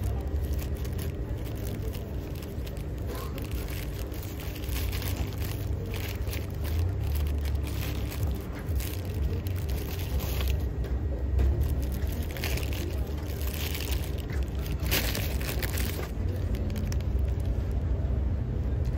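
Paper hamburger wrapper crinkling and rustling in the hands as it is peeled open, over a steady low rumble.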